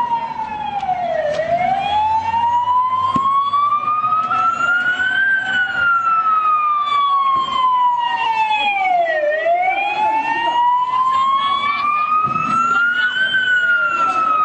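Emergency vehicle siren wailing slowly, its pitch sliding down to a sharp low turn, then climbing for about four seconds and falling again, the cycle repeating about every eight seconds over steady background noise.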